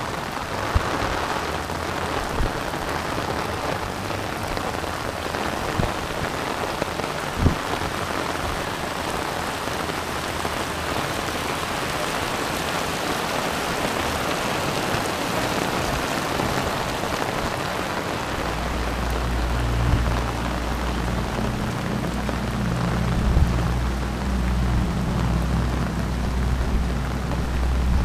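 Heavy rain falling steadily, with a few sharp drop taps. About two-thirds of the way in, a strong low rumble joins underneath.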